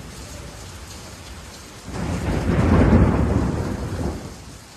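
Steady rain with a loud rumble of thunder that starts suddenly about two seconds in, swells and fades away over about two seconds.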